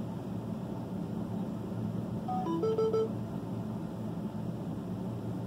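Steady low hum of a vehicle cab. About two and a half seconds in comes a quick run of electronic beeps: a few tones stepping up in pitch, then three short repeated beeps.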